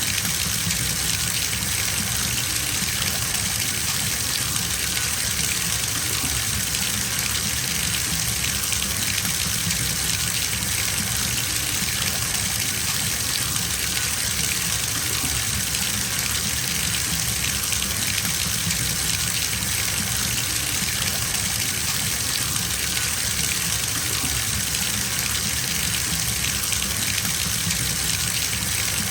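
Bathtub filling from a running tap: a steady, even gush of water pouring into the tub.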